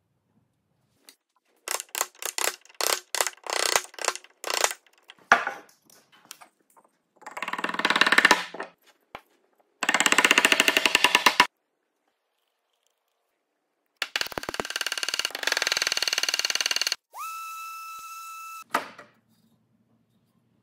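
Mallet blows driving a wooden mortise-and-tenon joint together: a run of sharp knocks, then stretches of fast, dense striking. A brief steady tone sounds near the end.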